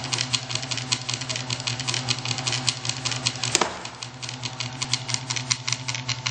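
A small motor-driven benchtop punch press running, with a rapid, even clacking from its flywheel and crank mechanism over a steady motor hum. One sharper, louder clack comes about three and a half seconds in.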